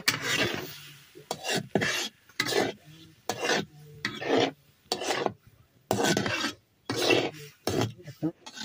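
Metal spatula scraping and stirring vegetables around a black iron wok (kadai), about a dozen uneven rasping strokes roughly a second apart.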